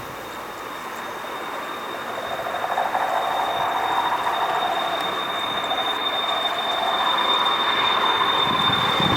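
Boeing 737-200's Pratt & Whitney JT8D turbofan engines as the jet passes: a rushing roar with a steady high whine, growing louder about two to three seconds in.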